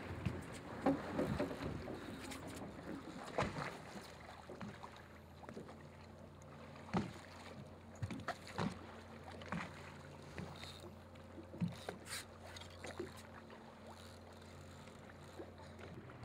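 Water lapping and slapping against a boat's hull, with a steady low hum underneath, some wind on the microphone, and scattered short knocks and clicks.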